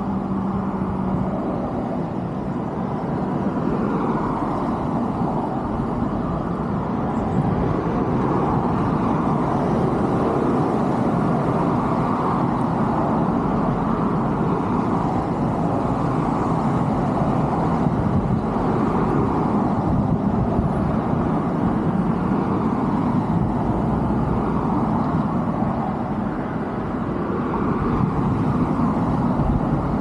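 Steady rumble of distant road traffic.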